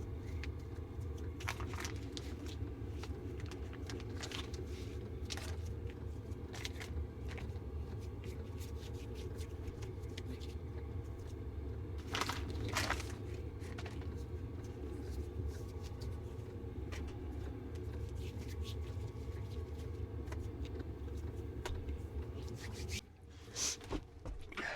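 Dough being handled and worked on a counter: scattered scrapes, crinkles and light clicks over a steady low hum that stops near the end.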